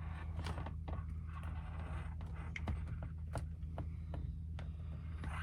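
Irregular small clicks, knocks and scrapes as parts of an accordion are handled and taken out, over a steady low hum.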